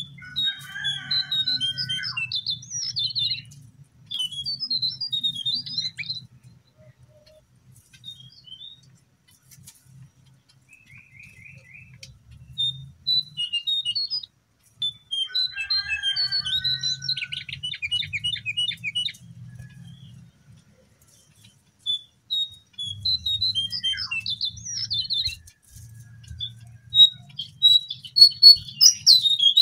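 Jongkangan (cingcoang coklat) songbird calling in bouts of quick, squeaky chirps, with a fast rattling trill a little past halfway. This is bird-call masteran, played to get cage or wild jongkangan to answer and sing.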